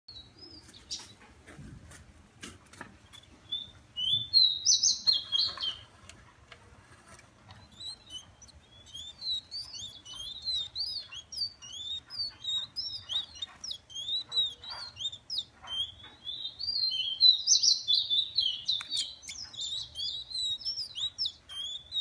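Small caged songbird singing a fast, near-continuous twittering song of short high chirps, starting about four seconds in. A few knocks and handling sounds come in the first seconds as the cage cover is taken off.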